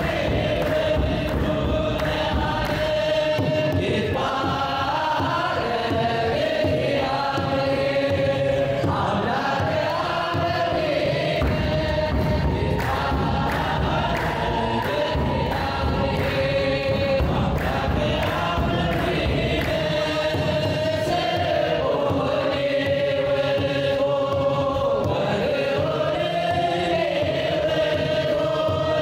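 Mixed choir of men and women singing an Eritrean Orthodox Tewahdo mezmur (hymn) in unison, with sustained, gliding sung lines over a kebero drum beat.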